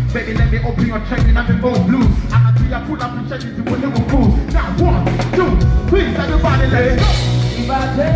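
A live band playing a mid-tempo groove with a steady beat and bass, and a voice singing over it.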